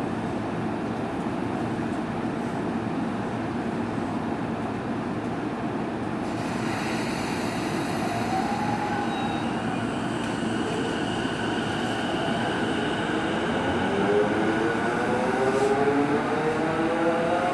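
Electric commuter train at a station, running steadily. About halfway through, its motor whine starts up and climbs in pitch as the train gathers speed.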